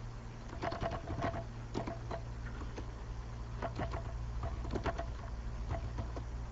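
Irregular light clicks and taps, about a dozen, some in quick pairs, over a steady low electrical hum.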